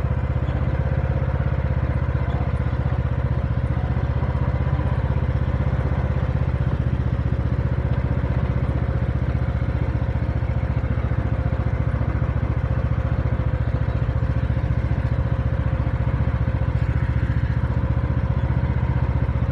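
Riding lawn mower's engine running steadily while the mower drives along at its slowest speed, blade disengaged.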